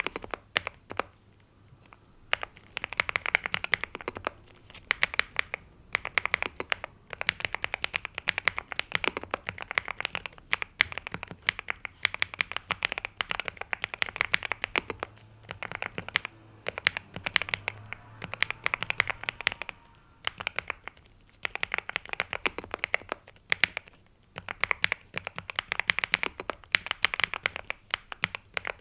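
Typing on a NuPhy Gem80 mechanical keyboard with NuPhy Mint linear switches and mSA double-shot PBT keycaps: quick runs of keystrokes broken by short pauses every few seconds.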